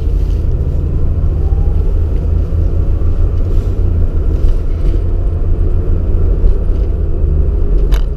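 1994 Jeep Grand Cherokee driving, heard from inside the cabin: a steady low rumble of engine and road noise, with one short click near the end.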